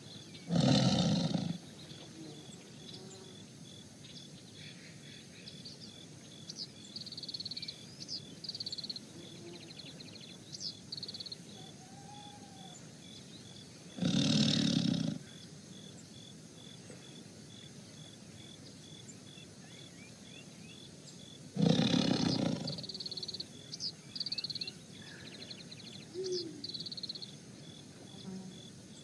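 A tiger roaring three times, each roar about a second long, with a steady pulsing insect chirp and scattered bird calls behind.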